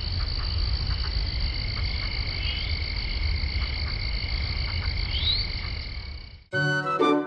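Night ambience of frogs and insects calling: a steady, fast-pulsing high trill over a low rumble. It fades out near the end as instrumental music begins.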